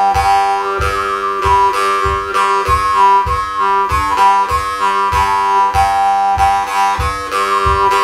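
Drymba, a Ukrainian jew's harp, played solo: a steady buzzing drone with a melody of shifting overtones above it. It is plucked in an even rhythm of about three strokes a second, playing a kolomyika dance tune.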